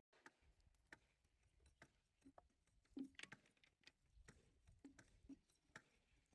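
Near silence with faint scattered clicks and taps.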